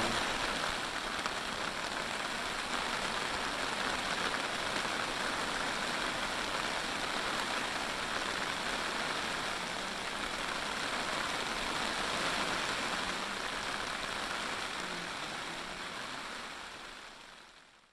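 Steady rain falling, an even hiss that fades out near the end.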